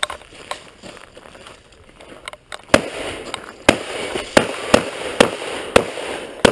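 Shotgun fired in quick succession, with about seven shots about half a second to a second apart starting almost three seconds in, each with a short echo.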